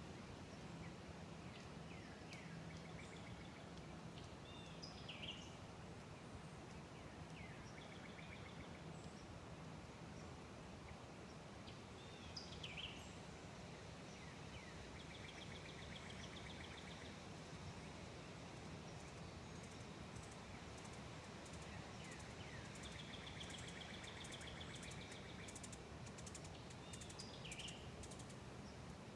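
Faint outdoor background noise with scattered short bird chirps and a couple of quick chattering trills.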